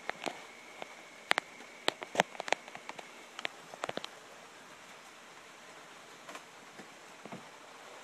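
Black bear chewing birdseed, a quick irregular run of sharp crunches and cracks in the first four seconds, then only a few faint ones.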